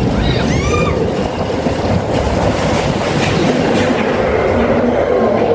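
Expedition Everest roller coaster train running along its track with a loud, steady rumble. A short, high squeal rises and falls about half a second in.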